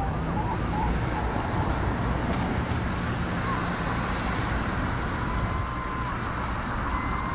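Steady low background rumble of distant traffic, with a faint drawn-out level tone about halfway through and another near the end.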